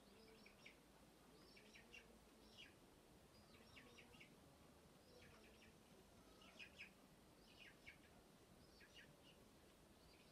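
Faint bird chirps: short, high calls repeated roughly once a second.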